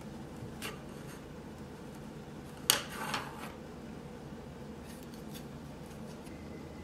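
Wooden embroidery hoop being taken off the fabric: a sharp clack about two and a half seconds in, then a softer knock half a second later, with a few faint ticks of handling.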